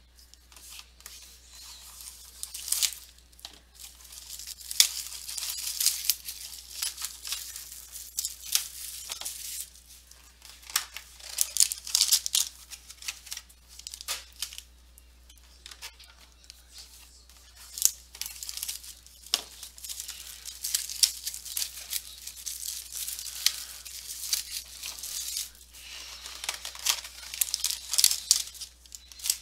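Foil wrappers of Panini Playbook football card packs crinkling and tearing as they are opened, with boxes and cards handled, in a long run of short, irregular scratchy bursts.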